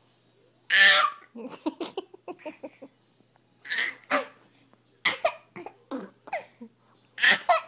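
A baby boy with the hiccups laughing in short loud bursts, with quick runs of giggles between them.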